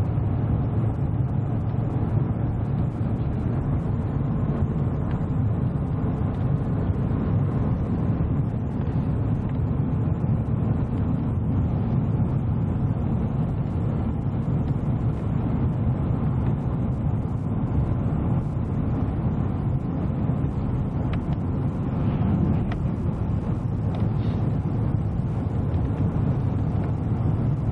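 Steady low rumble of a moving vehicle: engine and road noise running evenly.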